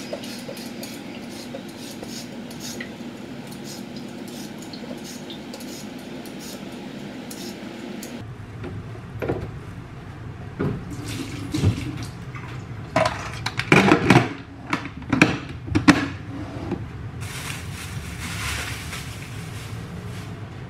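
Kitchen clatter at a sink: a steady run of water for the first several seconds, then dishes and cutlery clinking and knocking in quick irregular strokes, loudest a little past the middle.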